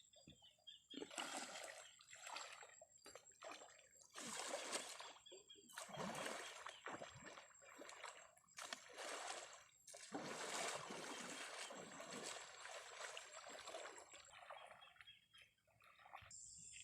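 Flood water splashing and sloshing in a string of irregular bursts, each lasting about a second.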